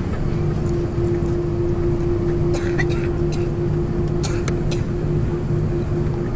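Cabin noise of an Airbus A340-300 taxiing, heard inside the cabin: a steady hum from its CFM56 engines at low power, with one clear tone held throughout. Short clicks sound a few times, mostly in the middle.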